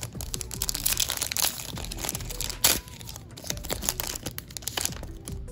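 Foil wrapper of a Panini Mosaic football trading-card pack crinkling as it is handled and torn open across the top, with a sharper, louder crackle about two and a half seconds in.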